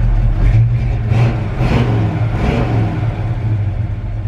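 1963 Chevy C30 truck's engine running through Flowmaster mufflers, a steady low exhaust hum with no clunk to be heard: the intermittent knock-like clunk the owner was chasing isn't present.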